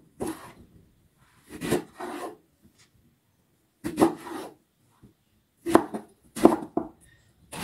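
Kitchen knife slicing lengthwise through eggplant on a wooden cutting board: separate cutting strokes a second or two apart, with a quicker run of three near the end.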